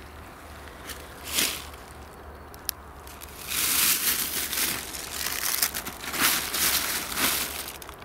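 Rustling and crunching of dry autumn forest litter being disturbed, continuous from about three and a half seconds in, after a quieter start with one short rustle and a single sharp click.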